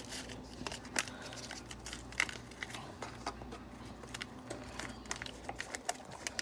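Paper seasoning packet crinkling and being torn open, a run of small irregular crackles and clicks over a steady low hum.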